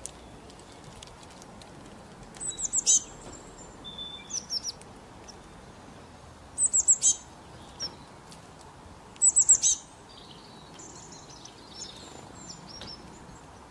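A songbird singing: three bursts of four or five quick, very high notes, each sliding downward, with softer scattered chirps in between, over a faint steady background hiss.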